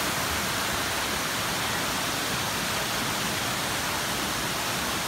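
Steady rush of flowing water from a spring-fed cascade.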